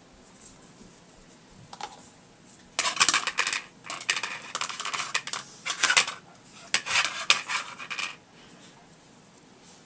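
Sheltie puppies' claws scrabbling and a hard plastic toy clattering on a tile floor, in several quick rattling bursts between about three and eight seconds in.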